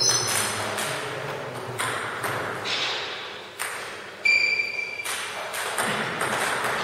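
Table tennis ball struck back and forth between bats and the table in rallies, giving sharp separate clicks. A short high squeak sounds about four seconds in.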